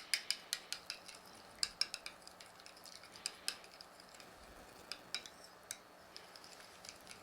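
A utensil stirring yeast and hot water in a mixing bowl, clinking against the bowl in quick irregular taps, busiest in the first couple of seconds and sparser after.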